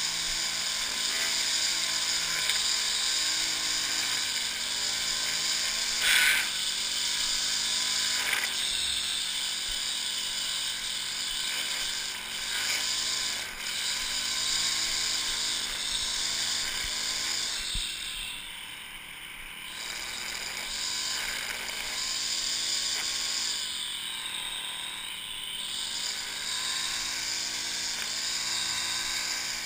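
Gas-powered string trimmer running under load, its engine pitch rising and falling as the throttle is worked and easing off twice in the second half. A sharp crack about six seconds in.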